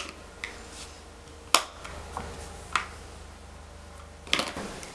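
Plastic makeup containers and items clicking and clacking as they are handled: a handful of sharp clicks, the loudest about a second and a half in, with a small cluster near the end.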